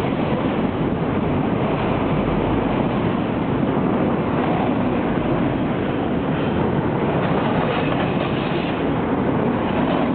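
Freight train of auto rack cars rolling past close by: a steady, loud rumble of steel wheels on the rails.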